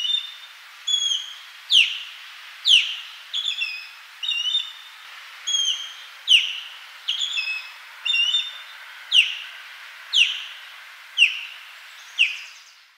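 Osprey calling: a steady series of sharp, high whistled calls, about one a second, some falling steeply in pitch and others short doubled notes, over a steady background hiss.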